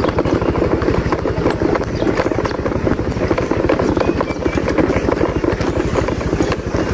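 Motorcycle engine running steadily while riding, a rapid even low pulsing.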